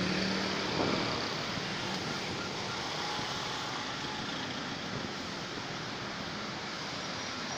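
Steady, even hum of distant city traffic.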